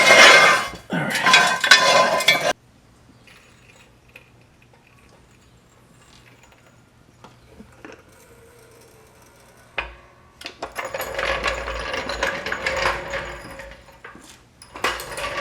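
Metal tools and parts clattering and clinking as they are handled, in two spells: a loud burst at the start and a steadier stretch from about ten seconds on, with a quiet gap between.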